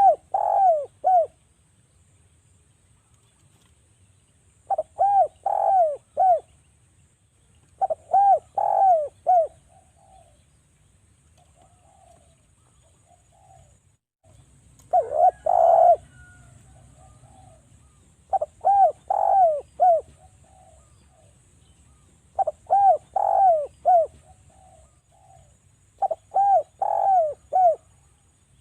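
Derkuku (Sunda collared dove) cooing in repeated phrases of three to four quick coos, a phrase every three to four seconds, with a few softer notes in between. Used as a lure call to get other derkuku calling.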